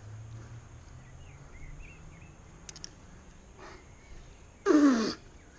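A short, loud grunt of effort from a climber on a move, falling in pitch, about five seconds in. Faint bird chirps in the background.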